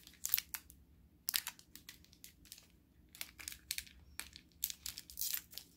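Plastic chocolate-bar wrapper crinkling as it is handled and opened by hand: a run of irregular sharp crackles and rustles.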